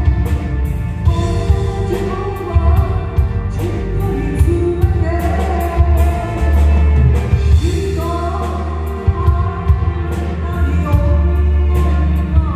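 A woman singing a song into a microphone, backed by a live band through the PA: violin and keyboard, a heavy bass line, and sharp percussion strikes keeping the beat.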